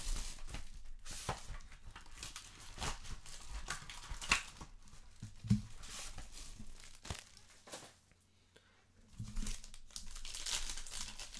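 Trading-card packaging being handled and torn open: a hobby box and then a foil card pack crinkling in the hands, in irregular crackles and rips, with a short lull about eight seconds in.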